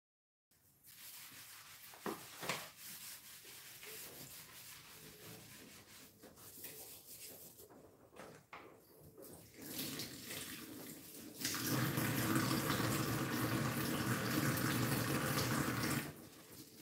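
Kitchen tap running into a stainless steel sink, a steady rush that starts about two-thirds of the way in and shuts off shortly before the end. Before it, quieter rubbing and light clinks of dishes being washed by hand.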